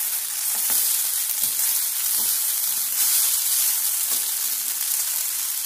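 Vermicelli upma with vegetables sizzling in a hot frying pan while it is stirred and tossed with a spatula, with a few soft scrapes of the spatula against the pan.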